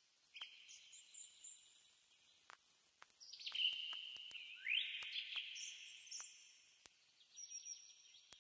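Birds chirping and trilling faintly, several high trills overlapping, with one rising call about halfway through and a few faint clicks.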